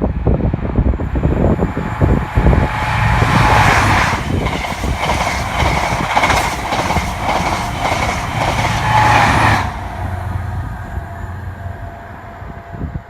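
A train passing at speed, its wheels clacking over the rail joints in a quick, regular series from about three seconds in, cutting off near ten seconds, with a low rumble that then fades away.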